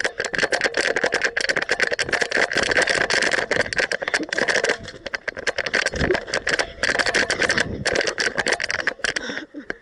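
Fast continuous mechanical rattling, about a dozen clicks a second, over a steady whine, dying away near the end.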